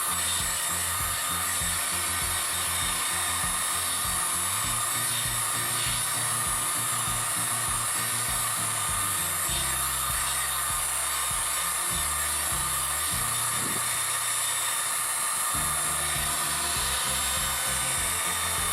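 Electric heat gun running steadily, its fan blowing with a continuous hiss while it heats a plastic bumper to soften it. Background music with bass notes plays underneath.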